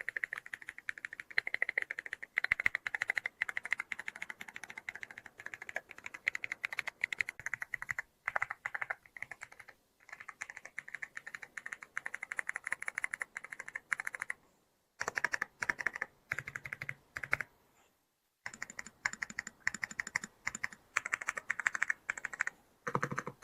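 Typing sound test on a gaming keyboard with Hall-effect magnetic switches: rapid, continuous keystrokes, broken by a few brief pauses.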